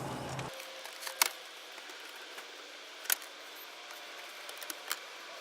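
A few sharp clicks and knocks, the loudest about a second in, the others about two seconds apart, from tools and interior trim being handled to start taking a car's center console out.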